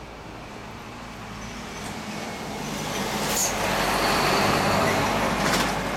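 A road vehicle passing by, its noise building over a couple of seconds, loudest about four to five seconds in, then fading near the end.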